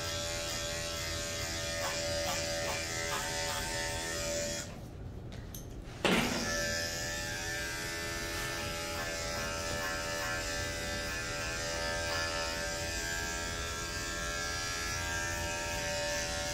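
Andis five-speed corded dog-grooming clipper running with a steady buzzing hum as it cuts the dog's head hair. It stops about four and a half seconds in and starts up again about a second and a half later.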